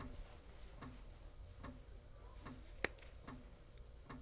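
Faint, even ticking, a little more than once a second, with one sharper click near the middle.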